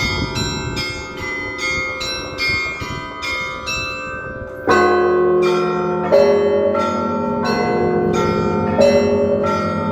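Church bells ringing: small, high bells struck in a quick, steady rhythm of about three strokes a second. About halfway through, deeper and louder bells join in, with a heavier stroke every second or so.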